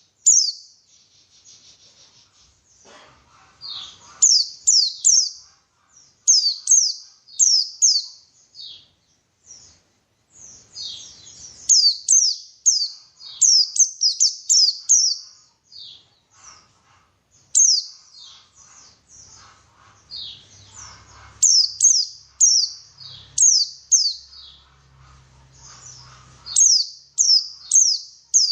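White-eye (pleci) singing: quick runs of high, sharply falling chirps, three to six at a time, repeated every second or two with short gaps.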